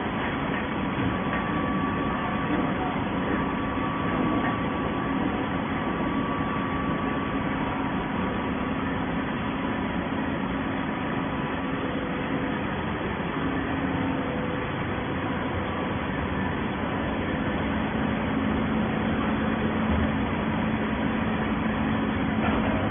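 Industrial waste paper baler machinery running: a steady mechanical hum and noise with a few held tones.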